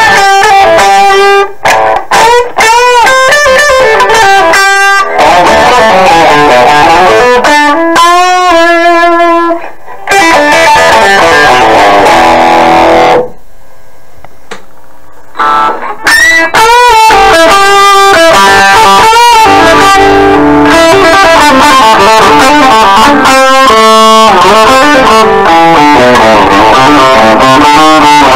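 Electric guitar played through a Danelectro HoneyTone mini amp driving a larger external speaker, with the amp's tone turned all the way up for as much bite as it will give. The guitar plays overdriven lead lines full of string bends and vibrato, with a short pause about 13 seconds in.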